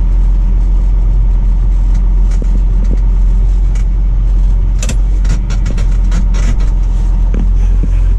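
Diesel tractor engine running steadily with a constant low rumble, with a few sharp clicks and knocks about five seconds in.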